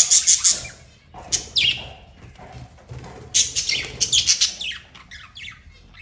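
Budgerigars chattering in bursts of quick, high chirps with falling notes. The bursts come at the start, again about a second and a half in, and in a longer run from about three to four and a half seconds in.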